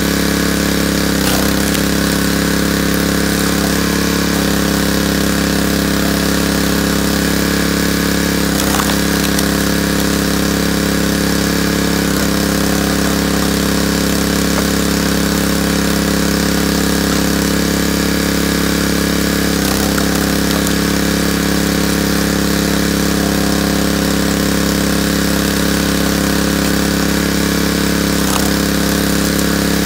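Small gasoline engine of a hydraulic log splitter running steadily. Its note dips briefly every few seconds.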